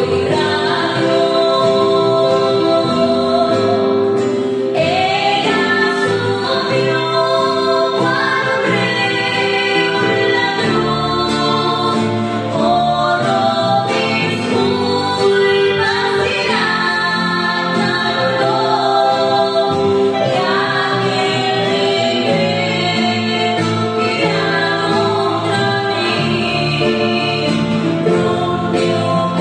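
Two women singing a Christian worship song together in harmony, accompanied by a strummed acoustic guitar.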